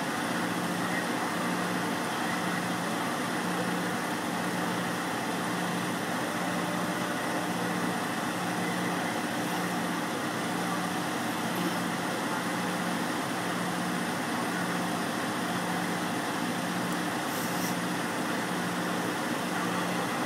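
Vehicle engine idling, heard from inside the cab: a steady hum, with a low tone pulsing on and off about once a second.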